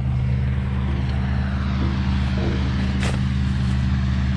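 Vehicle engine running steadily at a constant speed, a low even hum, with a single short click about three seconds in.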